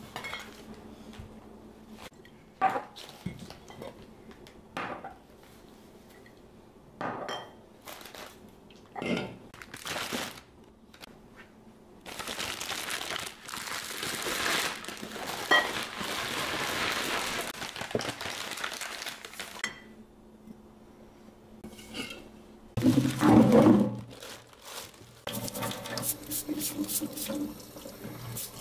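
Kitchen handling noises: scattered clinks and knocks of dishes and utensils, with a steady rushing noise for several seconds in the middle. A heavy thump comes about 23 seconds in, and rapid rubbing strokes follow near the end.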